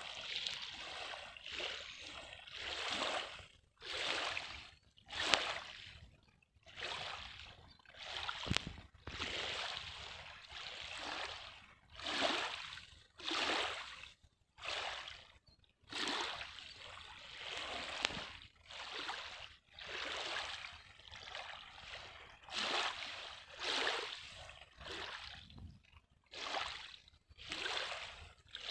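Small waves lapping at a lake shore: water sloshing in surges every second or two.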